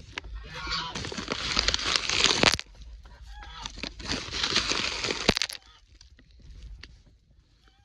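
Chickens clucking while they peck at scattered mealworms, over loud rustling in two stretches that stops a little past halfway. After that, only light scattered taps.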